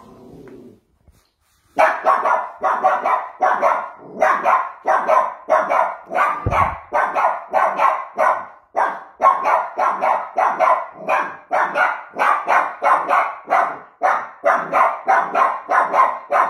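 Young puppy barking over and over, about two to three barks a second, after a short pause near the start, aimed at other dogs. The trainer puts the barking down to insecurity and nervousness.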